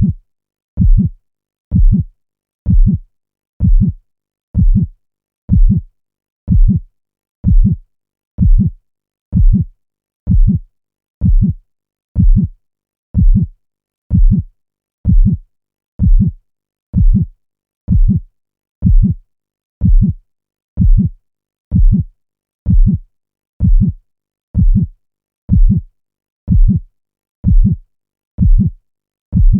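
Looped heartbeat sound effect: a deep, steady thump about once a second, with silence between beats.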